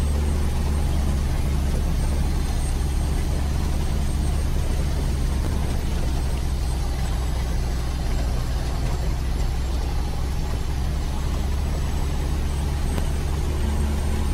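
Loaded log truck's diesel engine running steadily in gear on a steep downhill grade, heard from inside the cab: an even low drone with a faint steady high whine.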